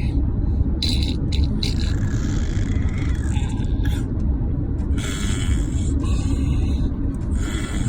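An 11-month-old baby making short, breathy fake coughs, five or six of them a second or two apart, over a steady low rumble.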